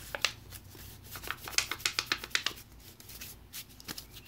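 Crinkling and rubbing of a cut-open aluminium beer can being wiped clean with rubbing alcohol, a quick run of irregular small clicks from the thin metal.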